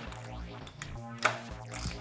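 Background music with a steady beat, with a few sharp clicks over it in the middle, the loudest just past halfway.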